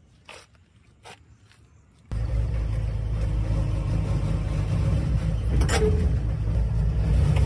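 A few faint clicks, then about two seconds in the XCMG excavator's diesel engine comes in abruptly, running steadily as heard from the operator's cab. One sharp clack sounds late on.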